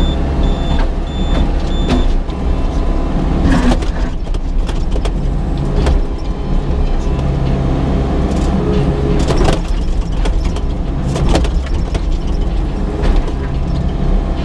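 Excavator diesel engine running steadily under hydraulic load, with several sharp knocks and clanks spread through as the bucket works against rock. A run of short high beeps sounds in the first couple of seconds.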